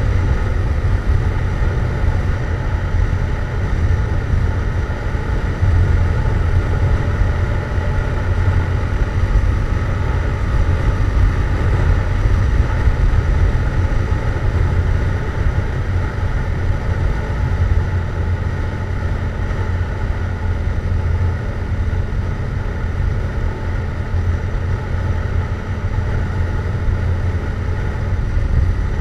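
Yamaha MT-07's parallel-twin engine through a Jeskap GP aftermarket exhaust, running at a steady pitch while the bike is ridden at cruising speed.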